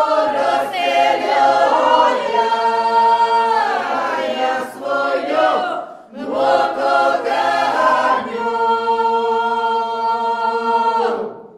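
A group of voices singing unaccompanied in harmony, holding long notes. The singing dips briefly about six seconds in, picks up again, and ends on a held chord near the end.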